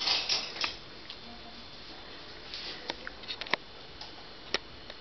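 A brief rustle, then a handful of light, sharp clicks and taps scattered over a couple of seconds as things are handled on a kitchen counter. The loudest clicks come about three and a half and four and a half seconds in.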